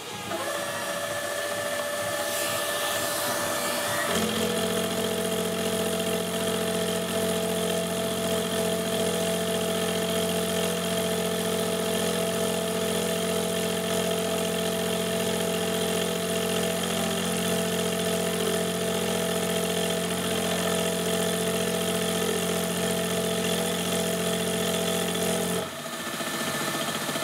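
Wabeco F1200 milling machine running as its insert face-milling cutter machines a casting, a steady motor-and-spindle hum. The hum changes about four seconds in, getting fuller and lower, and cuts off near the end.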